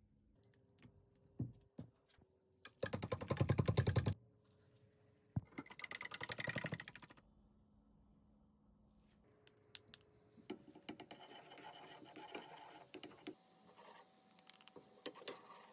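Two runs of fast, even clicking, each a second or so long, as a utensil whisks spices into liquid in a plastic jug. Later, garlic and herbs frying in oil in a frying pan, with clicks of a wooden spoon stirring and scraping the pan.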